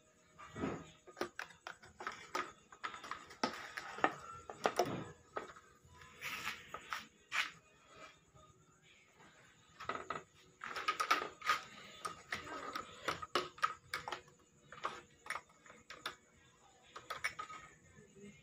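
Homemade plywood cable reel turning on its bolt axle while cable is pulled from it, giving irregular clicks and rattles in short clusters with gaps between them.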